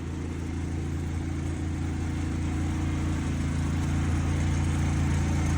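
An engine running with a steady low hum that slowly gets louder.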